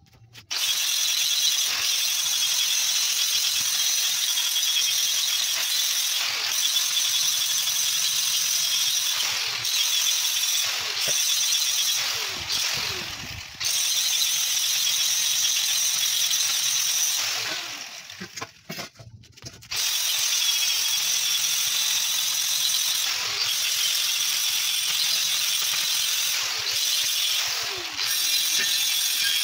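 Angle grinder sanding a steel car wheel rim down to bare metal so it can be welded, with a steady high-pitched whine and grinding hiss. About halfway through, it eases off and drops away twice for a moment, the pitch falling, then bites again.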